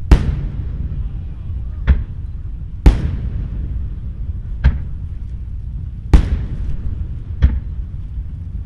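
Aerial firework shells bursting: six sharp booms at uneven gaps of one to two seconds, each followed by a short rumble.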